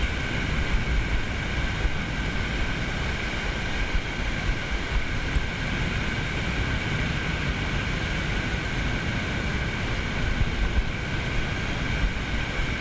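Wind buffeting the microphone over the wash of small waves running up a sandy beach: a steady, deep rushing noise with a faint constant high tone in it.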